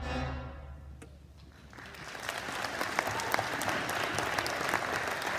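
A school concert band's final chord rings out and dies away, and about two seconds in the audience starts applauding, steady clapping to the end.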